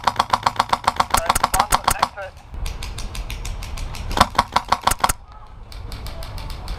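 Airsoft rifle firing rapid full-auto bursts: a long burst over the first two seconds and a shorter one about four seconds in, with fainter shots near the end.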